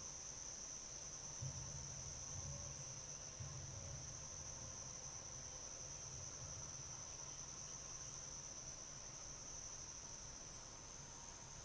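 Crickets in a steady chorus, one continuous high trill with no breaks, picked up faintly by a trail camera's microphone. A low rumble runs underneath.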